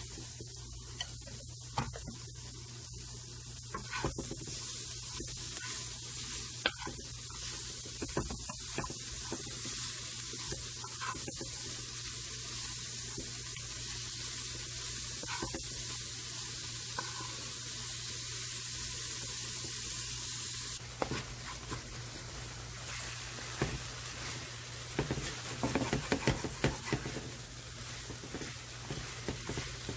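Chopped zucchini pulp, onion and green chilli frying in a non-stick pan, sizzling steadily while a wooden spatula scrapes and taps as it stirs. The sizzle cuts off suddenly about two-thirds of the way in, leaving the clatter of stirring, which grows busier near the end.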